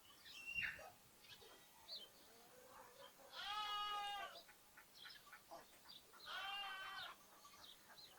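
A lamb bleating twice, a wavering baa of about a second and then a shorter one, with small birds chirping in short notes between.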